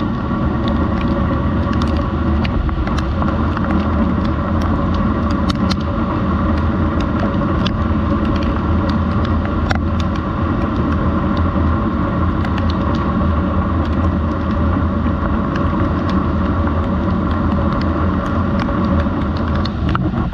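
Heavy rain falling steadily on a corrugated roof and foliage, with scattered sharper clicks of individual drops.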